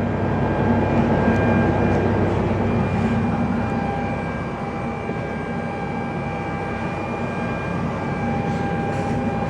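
Cabin noise inside a Boeing 717 airliner: a steady rush of air with a low hum and a few steady whining tones above it.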